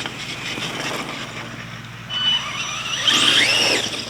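Electric RC truck driving, its motor whine sweeping up and falling back about three seconds in as it accelerates and eases off.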